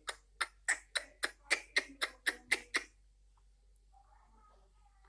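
A pet bird giving a laugh-like call: a quick run of about eleven short 'kek' notes, about four a second, stopping about three seconds in.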